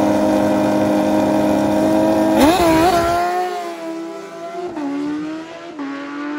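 Drag-racing motorcycles, a Suzuki GSX-R1000 and a Hayabusa, held at steady high revs on the line, then launching about two and a half seconds in. Two quick upshifts follow as they pull away and fade down the track.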